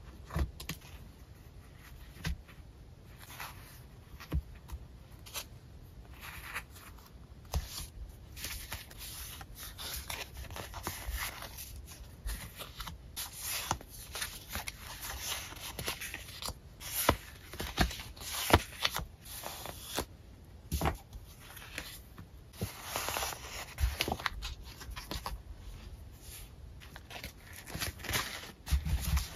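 Stack of paper sticker sheets being handled and sorted by hand: sheets rustling and sliding against one another, with frequent short taps and flicks of paper.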